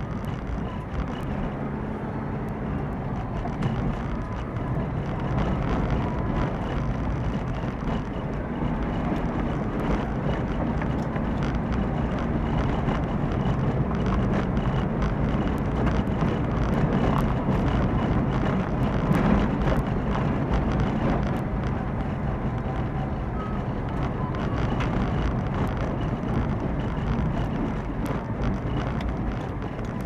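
Car driving along a mountain forest road, recorded by a dashcam: a steady engine and tyre rumble with frequent small ticks and knocks throughout.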